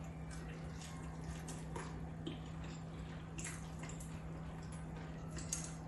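Room tone: a steady low hum with scattered faint clicks and taps.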